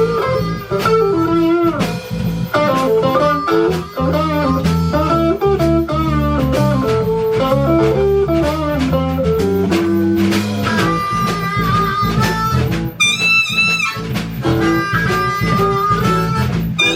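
Blues band playing live: a guitar lead line over bass and drums, and a high wavering lead line comes in about three-quarters of the way through.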